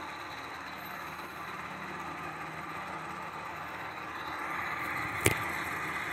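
Military helicopter running on the ground with its rotor turning, a steady engine and rotor noise played back through a screen's speaker. A single sharp click sounds about five seconds in.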